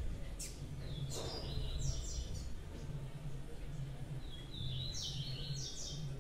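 A small songbird sings two short phrases of quick, high, stepped notes, about a second and a half each, a few seconds apart, over a steady low hum.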